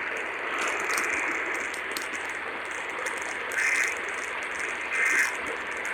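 Steady radio static hiss, broken twice by a short, harsh, buzzing data burst about a second and a half apart: the Emergency Alert System end-of-message (EOM) code that closes the alert.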